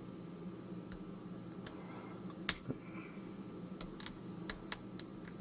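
Lock pick and tension wrench working inside a brass pin-tumbler padlock: scattered, irregular small metal clicks of the pick on the pins and warding, bunched together about four to five seconds in.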